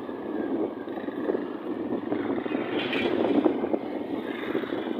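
Vehicle engine and road noise heard from a vehicle riding along a street, a dense rough rumble with no clear pitch.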